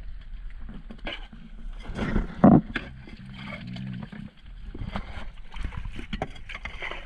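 A catch of bigeye scad being handled and sorted in the hold of a small wooden boat, with a dip net alongside: irregular knocks, slaps and rattles of fish and gear against the boards. The loudest is about two and a half seconds in.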